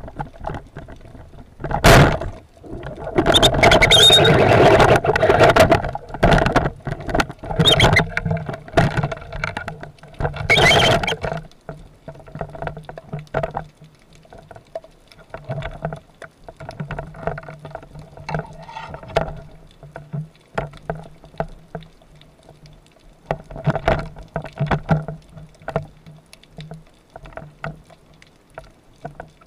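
Underwater spearfishing sound: a sharp crack about two seconds in, as a speargun fires, then several seconds of loud splashing and thrashing as the speared bluefish fights toward and at the surface. After that come smaller splashes and scattered clicks and rattles over a steady low hum.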